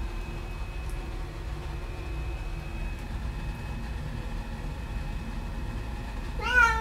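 A steady low hum, then near the end one short meow that rises and falls, from a Maine Coon cat; the meow is the loudest sound.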